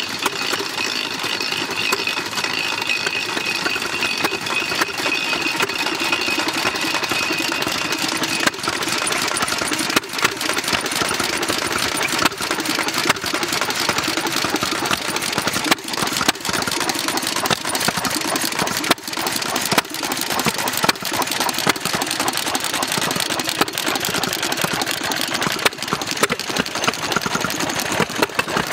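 Several vintage stationary engines with heavy flywheels running together, a busy overlapping clatter of firing beats and valve gear. A thin high whine sounds over it for the first eight seconds or so, then stops.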